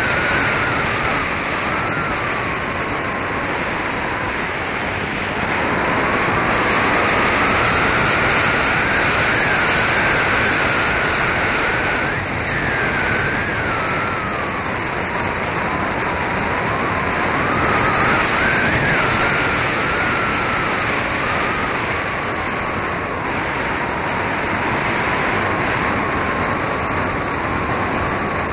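Electric RC model plane's brushless motor and propeller heard from the onboard camera: a whine that rises and falls with the throttle through the flight, over heavy wind rush on the microphone.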